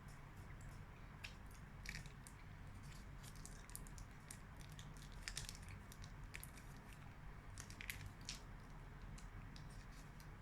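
Faint, close-up chewing of chocolate bonbons: small irregular crunches and mouth clicks.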